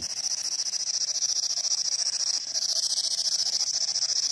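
P-SB11 spirit box sweeping through radio frequencies, giving out a steady high-pitched hiss of static with a rapid flutter.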